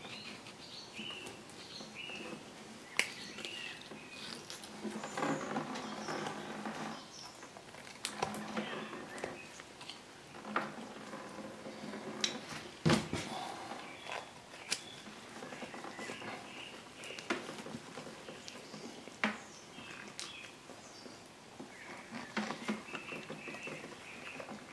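Wet squelching and rustling as a roe deer's stomach and intestines are worked loose and pulled out of the hanging carcass by gloved hands during field dressing, with scattered sharp clicks and knocks, the loudest about halfway through.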